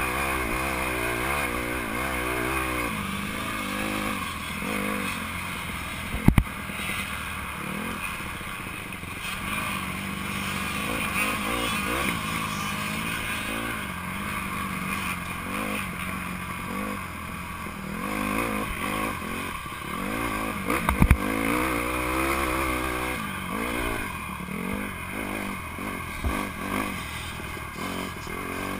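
Honda CRF150R's four-stroke single-cylinder engine revving up and down again and again as the dirt bike is raced, picked up by a camera mounted on the bike. Two sharp knocks stand out, about six seconds in and again about twenty-one seconds in.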